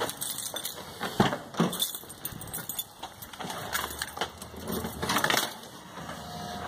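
Keys jangling, with irregular clicks and knocks from a Saab car's door being opened and someone climbing into the driver's seat. One sharp knock about a second in.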